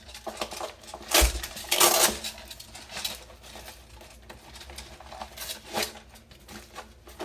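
Plastic airsoft magazines being handled on a vest: scattered knocks, clicks and clatter of hard parts. The loudest knock, with a low thud, comes about a second in, followed by another cluster just after, then lighter clicks.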